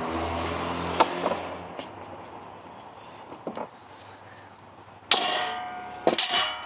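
Ceiling fan parts being handled during disassembly: a low hum that fades out in the first two seconds, a few light knocks, then two loud ringing strikes near the end.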